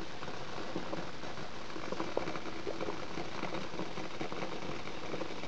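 Stovetop coffee percolator perking: a steady soft bubbling with small irregular pops.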